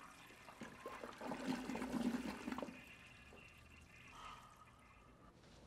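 Restroom toilet flushing: a rush of water starting about a second in, settling into a quieter steady hiss that dies away near the end.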